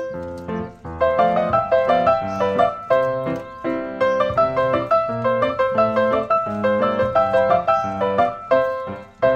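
Background piano music, a quick even stream of notes over lower chords.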